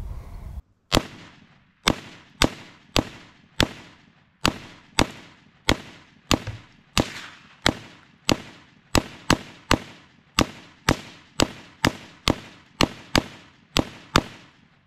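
AR-15 rifle firing 5.56 green-tip rounds in rapid semi-automatic fire: nearly thirty shots at about two a second, coming faster near the end, each with a short echo trailing off.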